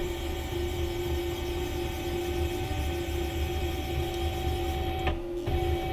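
Stepper motors of a CNC 6040 router jogging the spindle carriage along its axis, a steady whine over a low rumble. It starts with a click and stops with a click near the end.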